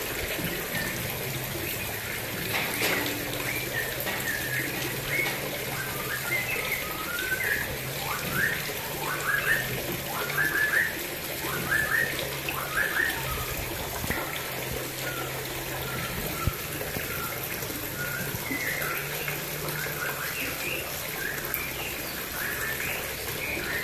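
Water pouring from an inlet pipe into a fish pond, a steady splashing, with runs of short, high chirps that drop in pitch, busiest about eight to thirteen seconds in and again around twenty seconds in.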